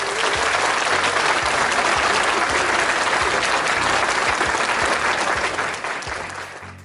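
Crowd applauding, dense and steady, then fading away near the end.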